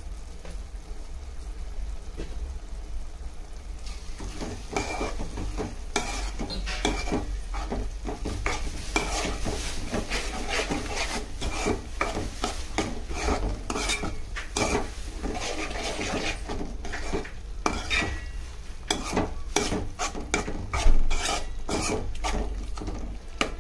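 Metal spoon stirring thick tomato curry in a metal pot, mixing in chilli powder, scraping and knocking against the pot's sides and bottom over and over from about four seconds in, with one louder knock near the end. A steady low hum runs underneath.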